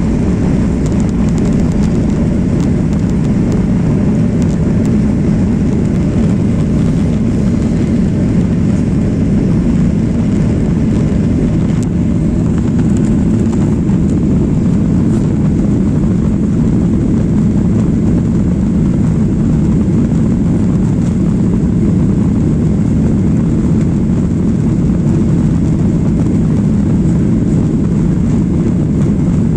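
Steady cabin noise of a jet airliner in flight: engine and airflow noise heard from a passenger seat, a deep, even rush that holds the same level throughout.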